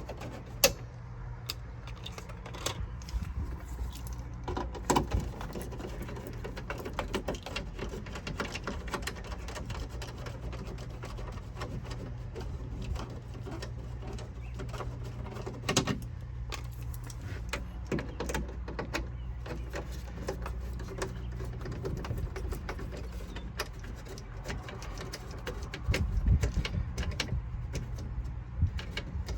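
Screws being backed out of a plastic dashboard cover with a hand tool: a long run of small clicks and ticks of metal and plastic. A steady low hum sits underneath.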